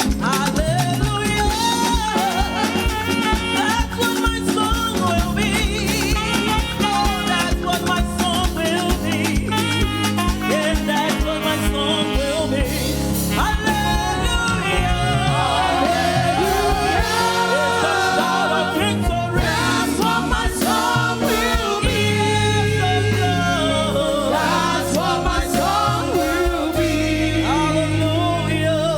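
Live gospel praise music with singing over a band with a steady beat.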